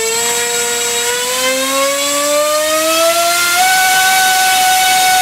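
Tarot TL3723 1700kv brushless outrunner motor spinning a 7x5 APC electric propeller under throttle on a thrust stand: a loud whine rising steadily in pitch, jumping up a step about three and a half seconds in and holding there, with a steady high whistle above it. The motor is pushing over two kilos of thrust, close to the most it can take.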